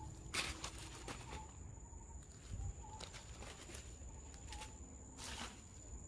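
Dry leaf litter rustling and crackling in a few short bursts, strongest about half a second in and again near the end, over a steady high-pitched whine.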